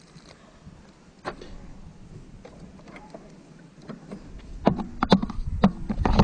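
Light handling noise, then a cluster of sharp knocks and rubbing right at the microphone in the last second and a half, as a hand reaches over and grips close to it.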